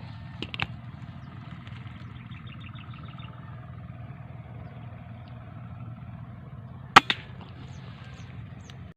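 Airgun shot: a single sharp crack about seven seconds in, with a second, smaller crack close behind it, over steady outdoor background noise. A couple of faint clicks come near the start.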